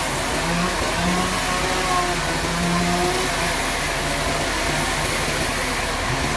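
Sawmill machinery running steadily, with a whine whose pitch wavers up and down over a constant noisy rumble.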